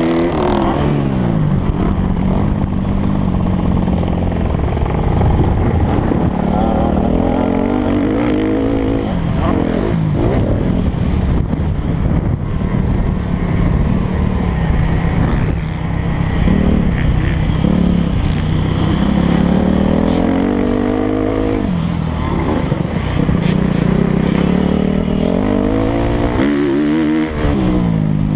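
Motocross bike engine heard from on the bike, revving hard and dropping back again and again as the rider opens and shuts the throttle and shifts through the race.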